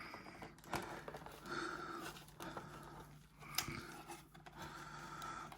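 Faint rustling and clicking of packaging being handled as a model train car is lifted out of its box tray.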